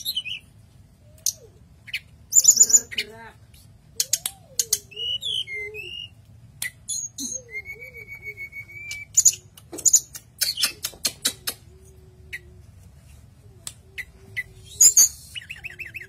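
Caged tledekan gunung (blue flycatcher) singing: a varied run of sharp high notes and clicks, a held whistle, and quick chattering series of notes, with a loud burst near the end.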